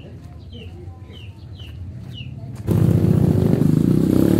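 Small birds chirp in short falling notes over a faint engine hum that grows louder. About two and a half seconds in, a motorcycle engine comes in suddenly, close and loud, and keeps running.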